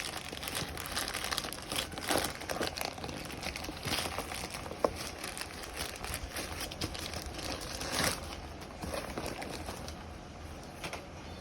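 Product packaging crinkling and rustling as it is handled and opened, in irregular bursts, with one sharp click about five seconds in.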